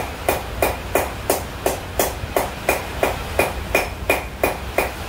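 Blacksmith's hand hammer striking a tool set on the anvil in a steady rhythm, about three blows a second, each blow a sharp metallic clang with a short ring.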